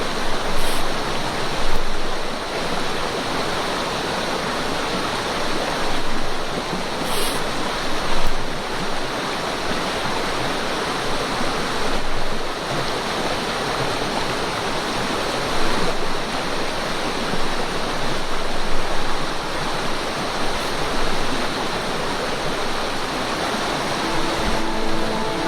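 Mountain stream rushing and splashing over rocks in a steady, loud flow.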